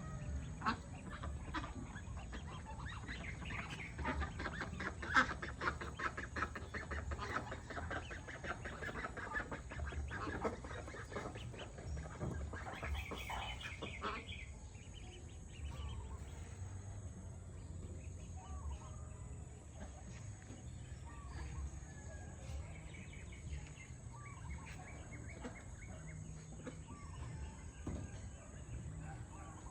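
A flock of farm poultry calling. Many rapid overlapping calls and clucks build in the first half, then thin to scattered single calls after about halfway, over a steady low rumble.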